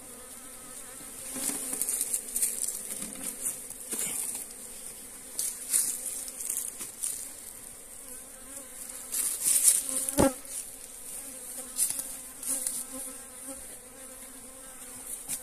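Honey bees buzzing in a steady swarm hum around an opened log hive as it is closed after honey is taken, with scattered rustles and one sharp knock about ten seconds in.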